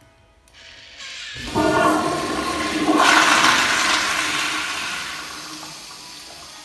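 Flushometer flush of a Toto CT708 commercial toilet: a loud rush of water that surges in about one and a half seconds in, is loudest about three seconds in, then slowly tapers off.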